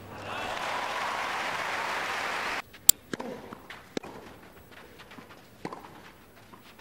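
Crowd applause in a tennis stadium, cut off suddenly about two and a half seconds in. Then comes a single sharp click, followed by a few scattered knocks of a tennis ball on racket and court.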